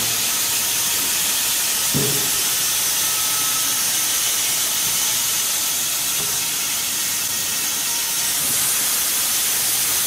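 Band sawmill running through a log: a steady, loud hissing saw noise, with one brief knock about two seconds in.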